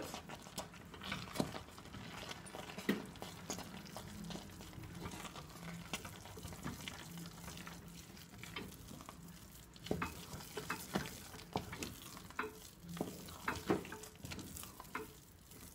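Wooden spoon stirring a thick mix of cooked lentils and fine bulgur in a stainless steel pot, with irregular soft scrapes and knocks against the pot, heavier in the last few seconds.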